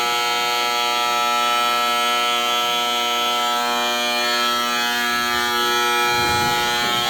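Fire alarm horn sounding as one steady, unbroken buzz. A low rumble joins it near the end.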